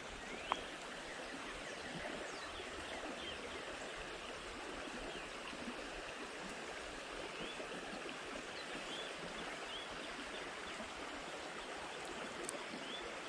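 Small creek water flowing steadily, with a few faint short rising chirps now and then.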